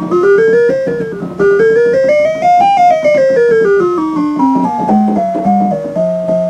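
Paia 9700 analog modular synthesizer playing a quick run of notes that steps up in pitch and back down, then climbs higher and falls again, over a steady low drone. It settles on a held note near the end.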